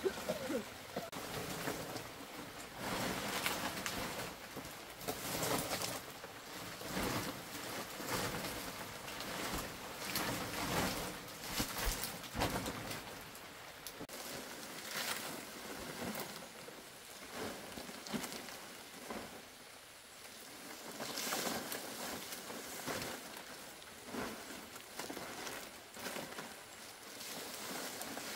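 Large palm fronds rustling and scraping in irregular bursts as they are handled and laid onto a hut roof for thatch, with an occasional sharp knock.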